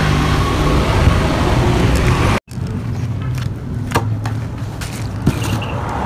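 A steady low engine hum with a few sharp taps or clicks over it; the sound drops out for an instant about two and a half seconds in.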